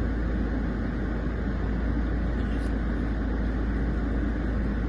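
Steady low rumble of a car heard from inside the cabin, unbroken and even throughout.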